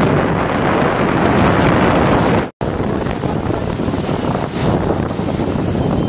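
Wind rushing over the microphone of a moving motorcycle, a loud, steady rush of noise, broken by a split-second dropout about two and a half seconds in.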